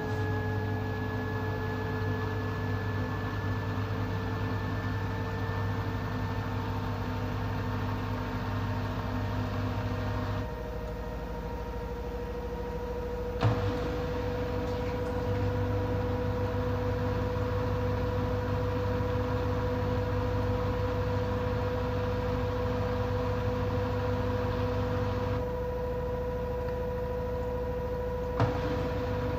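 LG F13D9NC front-loader in its final spin, the drum turning at high speed with a steady motor whine that edges up in pitch over the first few seconds. Under it a low hum cuts out twice and comes back each time with a click.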